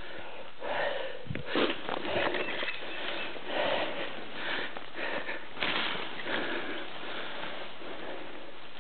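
A person breathing heavily and out of breath close to the microphone, roughly one noisy breath a second, after a hard scramble.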